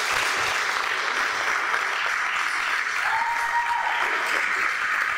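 Wedding guests applauding, steady and sustained, with a brief held high note from someone in the crowd about three seconds in.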